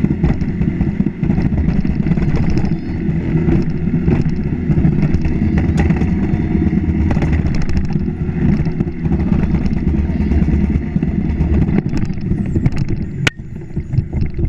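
Summer toboggan sled running fast down its trough-shaped track, a steady loud rumble and rattle with scattered small knocks and a sharp click near the end.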